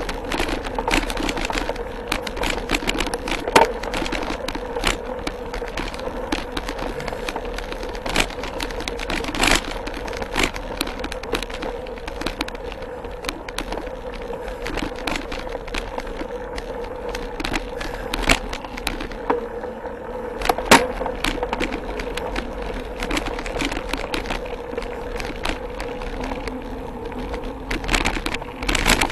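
Mountain bike rattling and clattering over a dirt singletrack, with frequent sharp knocks from bumps and roots and a steady hum underneath, picked up through a handlebar-mounted camera that carries the bike's vibration.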